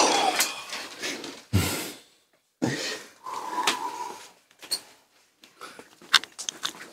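Stifled laughter and sharp breaths from several people trying to stay quiet, coming in irregular bursts with short pauses.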